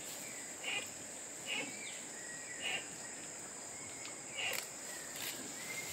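Rainforest insects: a steady high-pitched insect drone, with short chirping calls repeating about once a second and a few faint thin whistles.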